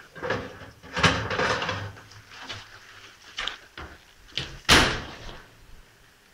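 Oven door opening and a metal baking tray being pulled out and handled, a series of clattering knocks with one loudest sharp knock near the end.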